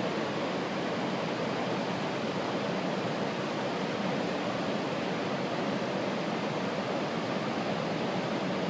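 Waterfall's water rushing in a steady, unbroken roar.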